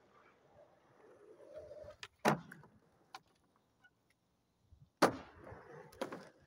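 Skateboard wheels rolling on asphalt and building up, then a sharp crack of the board about two seconds in. After a short quiet, the board lands with a loud slap about five seconds in, rolls on, and clacks again a second later.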